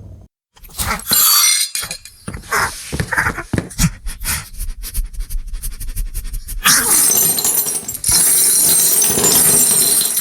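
Foley sound effects: a quick run of sharp clinks, knocks and rattles, then, about two-thirds of the way through, a dense crashing clatter like breaking glass and tumbling metal that lasts about three seconds.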